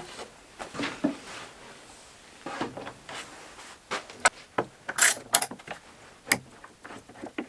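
Irregular clicks, knocks and short rattles of wood sheet stock and hardware being handled, with no power tool running.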